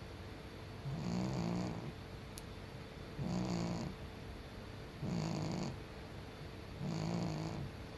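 A sleeping senior cat snoring: a buzzing snore under a second long about every two seconds, four in all.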